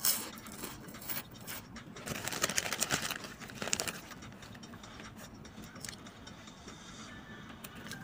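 Thin clear plastic bag of chicharon crinkling as a hand rummages in it, with a sharp rustle right at the start and a dense burst of crackling about two to four seconds in.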